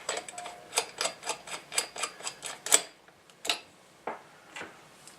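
Screwdriver driving a small screw into a radio's chassis, with a quick run of light metal clicks, about four or five a second, then a few slower clicks in the second half.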